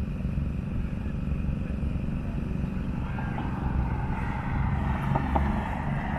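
A distant car engine running over a steady low rumble, growing louder and brighter from about three seconds in.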